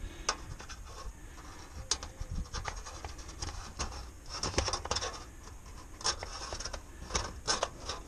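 Pencil scratching on a corrugated metal roof panel as it is drawn around the edge of a turbine vent's base plate, in short irregular strokes that come thicker in the second half.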